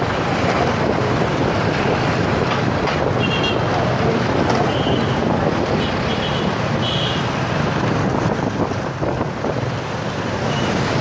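Wind buffeting the microphone of a moving camera in street traffic, over a steady rumble of motorbike engines and tyres on the road. A few short high-pitched tones cut in briefly now and then.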